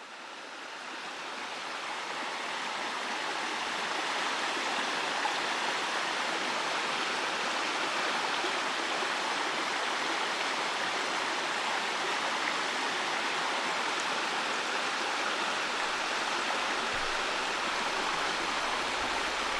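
Mountain stream flowing, a steady rush of water that fades in over the first few seconds and then holds even.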